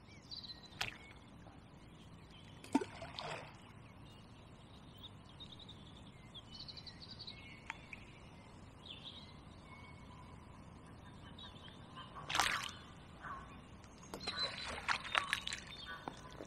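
Quiet lakeside air with faint birdsong, broken by a few short splashes and knocks of balls of groundbait being thrown by hand into the lake. The loudest comes about twelve seconds in, and a cluster follows near the end.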